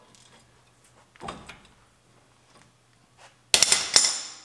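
Impact wrench firing in two short, loud bursts near the end, breaking loose the caliper bracket bolts on a truck's front steering knuckle, after a light metal clunk about a second in.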